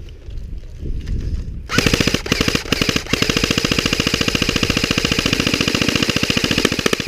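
JG G36C airsoft electric rifle firing a long full-auto burst, a rapid even rattle of shots that starts a little under two seconds in and runs for about five seconds.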